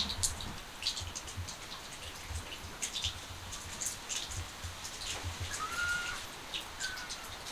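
Rain dripping and pattering in irregular ticks, with two short high calls in the second half.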